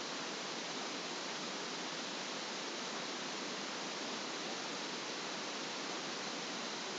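Steady hiss of the narration recording's background noise, even throughout, with no other sound.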